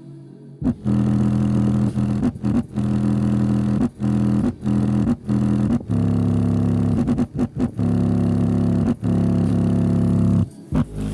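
Sharp 8-inch single-voice-coil subwoofer running in free air with no enclosure, playing loud, deep bass notes. The notes come in held pulses with brief dropouts between them, starting about half a second in.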